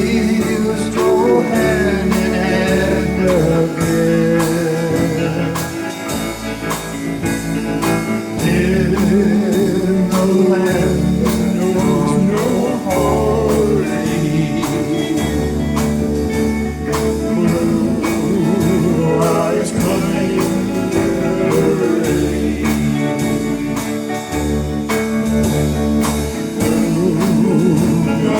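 Small country band playing live: guitars, bass and steady drums, with a sung lead vocal over them.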